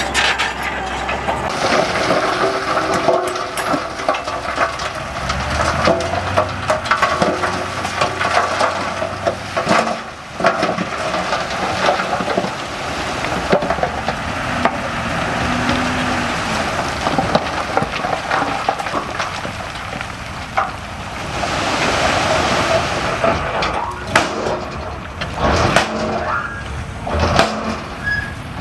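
Heavy earthmoving machinery at work: a diesel engine running under a continuous rush of soil and scraping, with scattered knocks and clatter.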